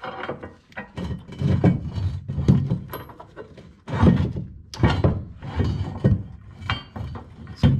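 Steel gooseneck hitch rail and its bolt and conical washer being handled and fitted up against the truck's frame: a string of irregular metal clunks and clinks.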